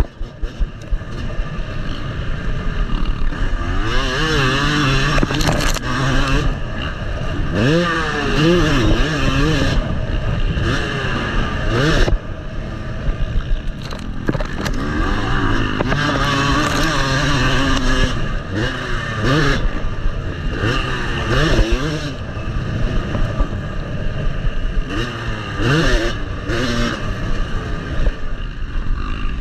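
Yamaha motocross bike's engine revving hard and dropping back again and again as it is ridden around a dirt track, heard close up from the rider's position, the pitch climbing and falling every few seconds through the gears.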